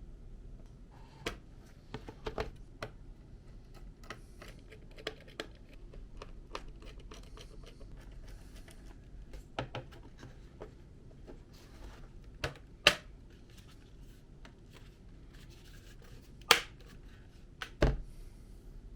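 Irregular small clicks and scrapes of hard plastic parts being handled and fitted, with a few sharper snaps, the loudest about 13 and 16 seconds in.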